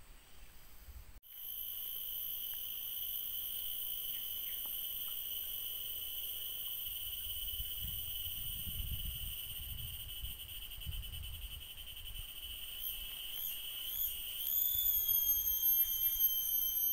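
Cicada calling: a loud, steady, high whistle that starts suddenly, wavers a few times near the end, rises in pitch and then cuts off.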